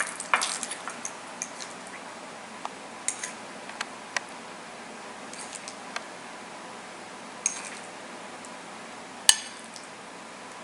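Kitchen utensils clinking and scraping against dishes: a scattered run of light taps and short scrapes, with one sharper clack about nine seconds in.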